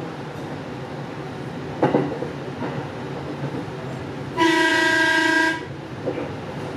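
Electric train running along the track with steady rumble and a sharp clack about two seconds in. Then a train horn sounds one steady, loud tone for just over a second.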